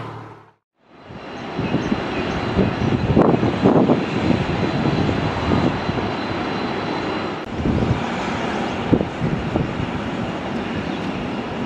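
Jet engines of a four-engine Boeing 747 running at taxi power. After a brief fade to silence about half a second in, they give a steady, dense rumble that swells unevenly, with a faint high whine over it.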